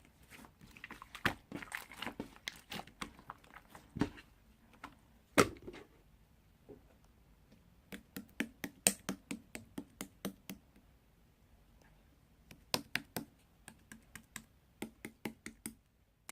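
A run of sharp, irregular clicks and taps in a small room, in clusters, with a couple of louder knocks.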